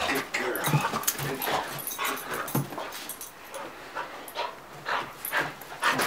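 A border collie making short, excited vocal sounds, many in quick, irregular succession.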